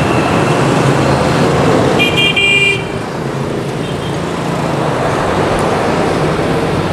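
Steady road traffic noise, with a vehicle horn honking once for under a second about two seconds in.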